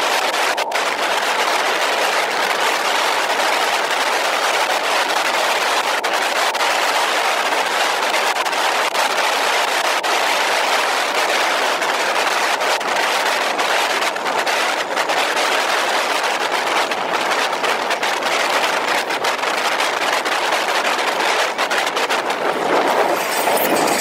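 Steady rush of wind and tyre noise from a moving vehicle at road speed, with faint clicks now and then.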